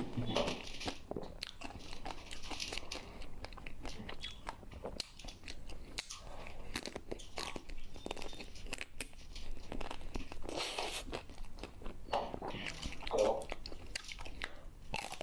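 A person eating a crunchy fried snack by hand from a steel plate: irregular crunching and chewing, with small crackles, all the way through.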